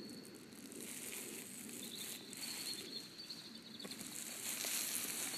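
Faint outdoor background noise: a steady hiss with no clear single source, growing slightly louder near the end.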